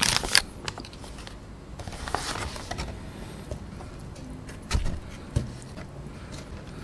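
Paper burger wrapper crinkling, then fried chicken pieces being handled out of a cardboard box and set down on a wooden board, with two soft thuds about five seconds in.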